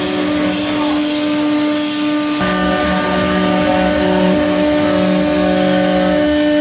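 CNC router spindle running with a steady whine while its V-bit carves a pattern into MDF. Several machine tones underneath switch on and off as the head moves, and the mix changes about two and a half seconds in.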